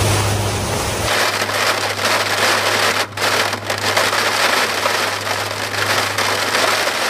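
Rain beating on a WC-130J Super Hercules in flight through a tropical storm: a dense, even hiss that thickens about a second in, over the steady drone of its four Rolls-Royce AE 2100 turboprops and six-blade propellers.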